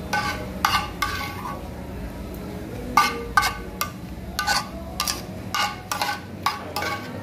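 A utensil clinking against a metal bowl about a dozen times at an irregular pace, each clink ringing briefly, over a steady low kitchen hum.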